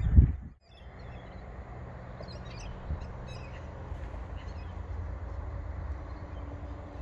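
Scattered bird calls over a steady low outdoor rumble, with a single thump just after the start.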